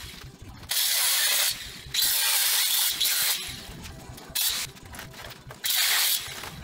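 Angle grinder biting into a rusty steel vehicle frame in four bursts of harsh grinding, the longest about a second and a half and one very short, with quieter running in between.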